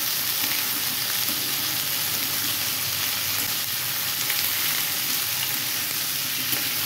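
Potato and cauliflower pieces sizzling steadily in hot oil in a steel kadhai while a metal spatula stirs them.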